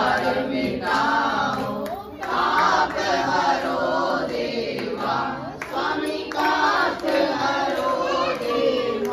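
A group of people singing a Hindu aarti hymn together in unison, with no instruments clearly heard.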